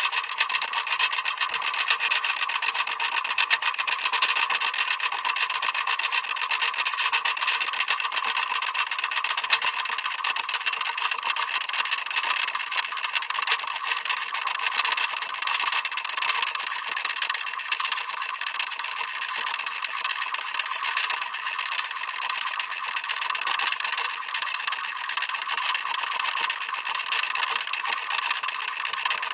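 Clock mechanism ticking rapidly and steadily, the ticks so close together that they run into an even chatter.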